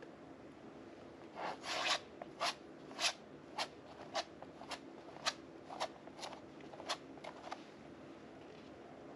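Palette knife scraping modeling paste across a canvas in a run of short strokes, about two a second, which stop shortly before the end.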